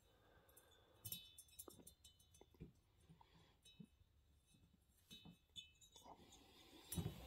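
Near silence broken by a few faint, scattered small metal clicks and clinks as a coiled-wire thread insert is handled and set into a tapped hole on a chainsaw cylinder.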